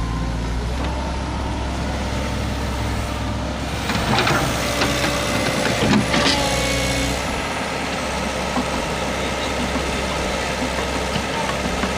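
Sumitomo hydraulic excavator's diesel engine running steadily. About four to seven seconds in it gets louder and busier, with clanking as the machine works.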